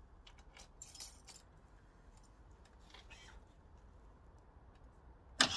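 Faint clicks and jingling of keys at the ignition, then near the end the BMW R1200RT's starter motor suddenly kicks in, cranking the boxer twin; the starter has just been stripped and cleaned after repeatedly seizing.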